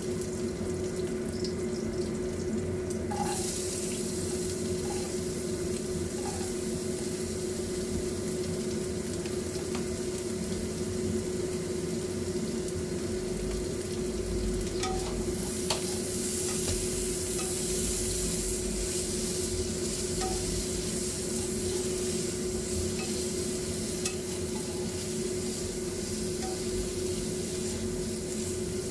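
Hot oil sizzling and bubbling around spring rolls deep-frying in a pot, with diced meat sizzling in a wok as a spatula stirs it and now and then taps the pan. The sizzle grows louder about 3 seconds in and again midway, over a steady low hum.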